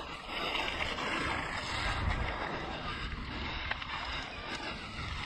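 Mountain bike riding down a dirt trail, heard from the rider's camera: a steady rush of wind over the microphone and tyre rumble, heavier about two seconds in, with a couple of sharp knocks from the bike partway through.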